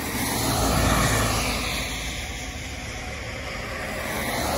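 Traffic noise on a wet road: the rushing hiss of tyres on wet pavement swells about a second in, fades, and swells again near the end.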